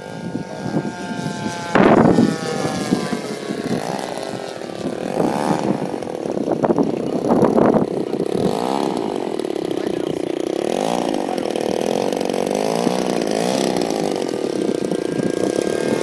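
DLE 20cc single-cylinder two-stroke gas engine of a flying RC Skyraider model running at flight power, its pitch rising and falling as the plane manoeuvres. A short burst of noise comes about two seconds in.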